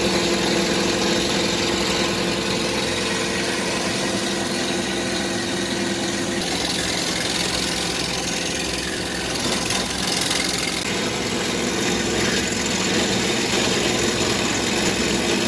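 WEIMA Beaver 400 horizontal grinder running and shredding long wooden slats: a loud, steady machine drone whose hum changes pitch about six seconds in.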